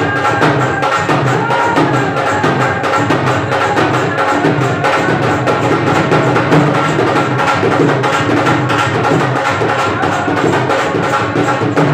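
Folk dance music with a fast, steady hand-drum beat.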